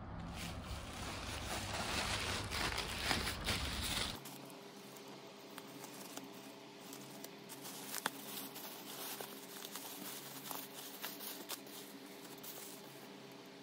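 Thin plastic courier bag crinkling and rustling as it is handled and cut open with scissors, then bubble wrap rustling. It is louder with a low rumble at first, turns quieter after an abrupt change about four seconds in, and has one sharp click near the middle.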